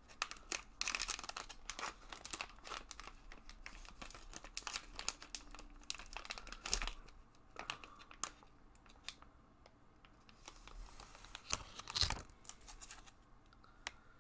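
Foil pouch crinkling and rustling as hands work it open and pull its contents out: irregular crackles, with louder bursts about a second in, about halfway, and near the end.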